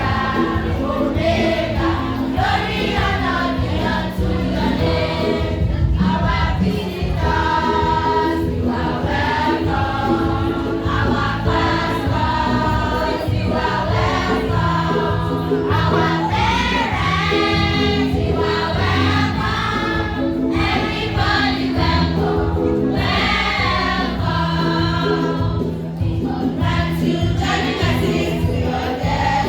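A choir singing a gospel song with steady instrumental accompaniment.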